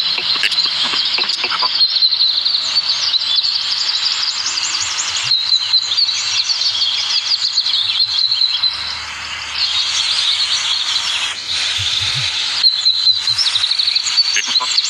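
Dense, continuous chorus of birds chirping, many rapid high-pitched calls overlapping, with brief lulls about nine and eleven seconds in.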